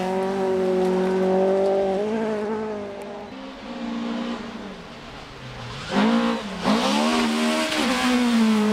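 Toyota Corolla GT AE86 rally car's twin-cam four-cylinder engine driven hard at high revs. It drops in pitch and fades a couple of seconds in, then comes back loud about six seconds in with quick falls and rises in pitch as it shifts through the gears.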